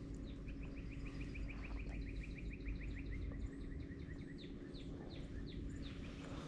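A songbird singing: a fast trill of about ten short down-slurred notes a second for about three seconds, then a handful of slower, higher down-slurred notes, over steady low background noise.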